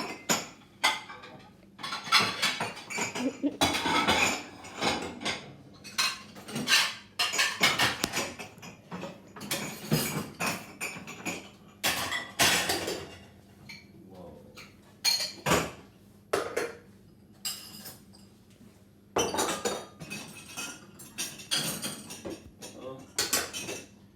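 Dishes and cutlery clattering and clinking as a dishwasher is hurriedly unloaded: a quick, irregular run of sharp knocks and clinks of crockery and metal being set down and stacked.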